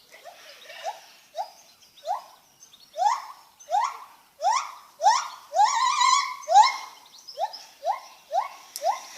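Lar gibbon calling: a series of short rising whoops, about two a second, growing louder to a peak with a longer held note around the middle, then easing off.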